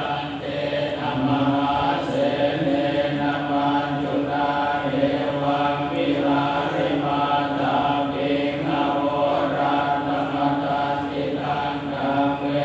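Buddhist chanting: voices reciting on a steady, mostly level pitch without pause.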